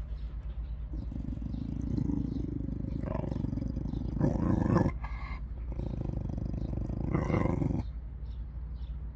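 A dog growling low in two long growls. The second starts after a short break about five seconds in.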